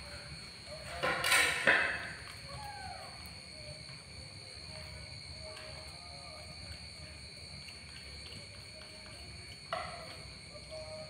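An animal's loud, harsh cry about a second in, during a tussle between a young macaque and a kitten, then a short falling call. A brief sharp sound comes near the end.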